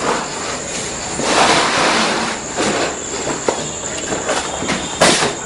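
Sheet of plastic vinyl flooring being unrolled and shifted by hand across a tiled floor: rustling and crackling that swells about a second in, with scattered sharp clicks and one louder crack near the end.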